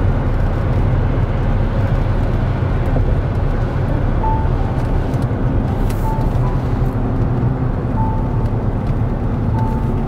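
Steady low road and engine rumble inside the cabin of a Land Rover SUV driving at highway speed.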